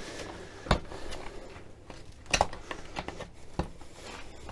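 Steel top bar of an MGB rubber bumper being worked loose from its clips by hand: a few sharp metallic clicks and knocks, the loudest about two and a half seconds in, with quiet scraping and rustling between.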